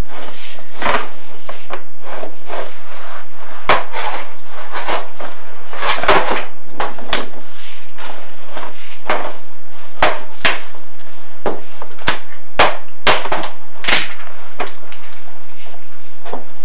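A chimney inspection camera and its push rods knocking and scraping against the clay flue tile walls: a run of irregular sharp knocks with scraping between them, several clustered close together near the middle and toward the end.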